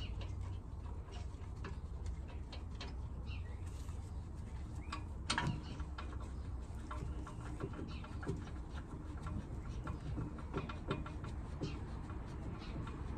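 Light metallic clicks and knocks of a Brembo front brake caliper being worked into place over the disc, with a bird calling in the background.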